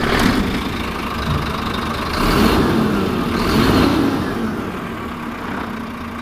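Scania truck's diesel engine running under load as the rig pulls away, swelling twice as it accelerates.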